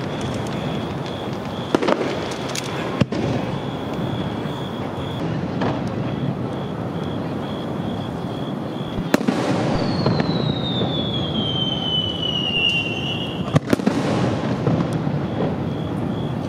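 Aerial fireworks going off: several sharp bangs over a steady noisy background, with a long whistle falling in pitch for about three seconds, starting about ten seconds in.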